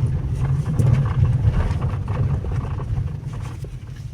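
Low, uneven rumbling from a Hyundai Accent's steering while the car moves, fading toward the end. This is the noise of a worn steering shaft (worm shaft) bearing.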